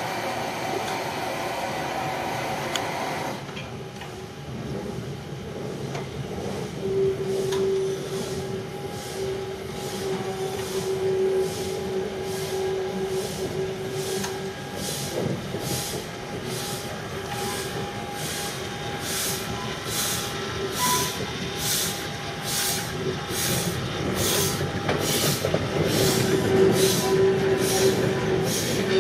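Small steam tank locomotive working slowly past with coaches: regular exhaust chuffs, about one and a half a second, grow louder as it comes by, over a drawn-out squeal from the wheels.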